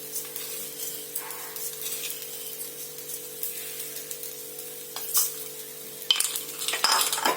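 Soaked semolina sizzling as it fries in oil in a kadai, with a spoon scraping and stirring it; the scraping grows louder and busier near the end.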